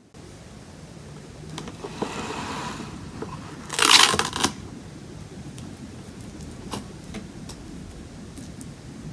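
Plastic cling film (Saran Wrap) being drawn off its roll with a rustling hiss, then ripped across the box's cutter in a loud crackling tear about four seconds in. Light crinkles and ticks follow as the sheet is smoothed flat on the table.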